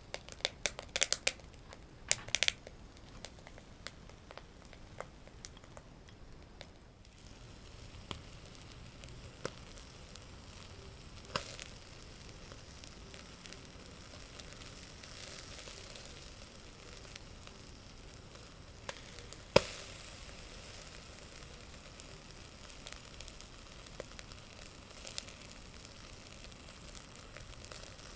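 Capelin sizzling on a wire grill over charcoal in a shichirin, a steady faint hiss with scattered crackles and one sharp pop about two-thirds of the way through. In the first couple of seconds, quick clicks of chopsticks against the wire mesh as the fish are laid down.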